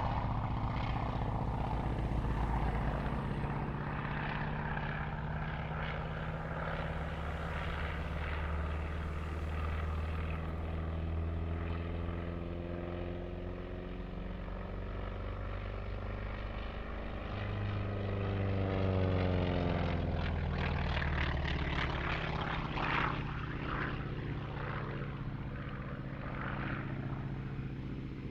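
North American T-28 Trojan's radial engine and propeller running through a flying display, its pitch sweeping as the aircraft passes about two-thirds of the way through.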